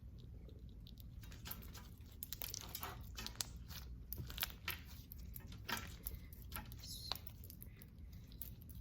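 Slime mixed with beads, foam beads and rhinestones being squeezed and stretched by hand, giving faint, scattered crackles and clicks. The crackles are weak.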